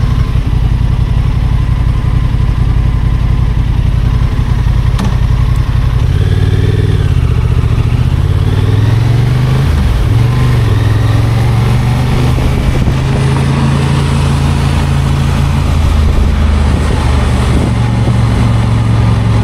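Honda Transalp 750's parallel-twin engine running under way, recorded on the motorcycle itself. Its pitch holds steady at first, climbs and dips a few times about six to ten seconds in, then runs steady again.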